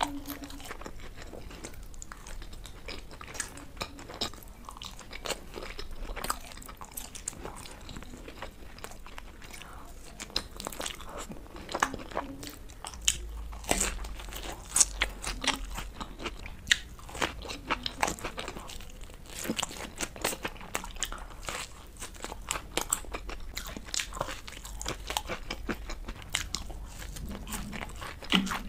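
Close-miked ASMR eating: a person biting and chewing crispy fried street-food snacks, with many sharp, irregular crunches, more frequent in the second half.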